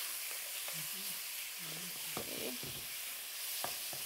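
Chicken pieces stir-frying in a hot wok: a steady sizzling hiss, with a few sharp scrapes and knocks of a wooden spatula against the wok as they are stirred.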